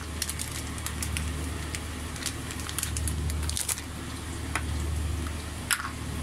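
Plastic-gloved hands pressing and turning schnitzel meat in dry breadcrumbs, giving irregular crackling, crunching and rustling, over a steady low hum.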